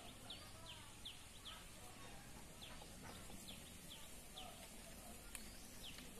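Faint bird chirping: short, high, downward-slurred notes repeated irregularly, often a few a second, over quiet outdoor background, with a single faint click about five seconds in.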